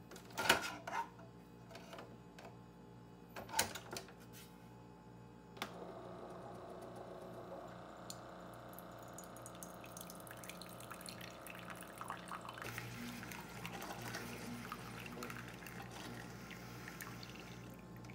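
Keurig single-cup coffee maker being loaded and brewing: a few clicks and knocks as a pod goes in and the lid is shut, then from about five seconds in the machine runs with a steady pulsing hum while coffee streams into a ceramic mug.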